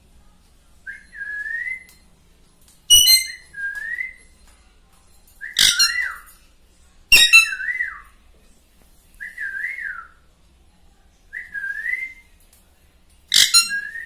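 Alexandrine parakeet whistling the same short phrase again and again, a rise and a dip repeated every second or two. It is broken four times by short, harsh screeches.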